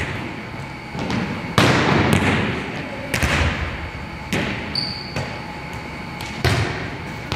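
Volleyballs struck and dug in a gymnasium drill: a string of about seven sharp smacks and bounces on the hardwood floor, echoing in the hall, the loudest about one and a half seconds in. A brief high squeak comes near the middle.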